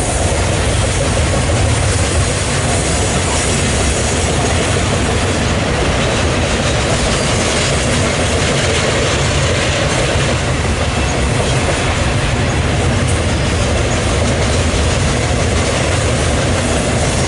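BNSF double-stack intermodal freight train's well cars rolling past close by: a loud, steady rumble of steel wheels on rail.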